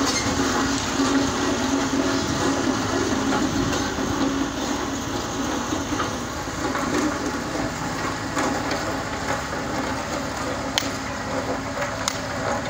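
Tractor engine running steadily under work, with a few sharp clanks near the end.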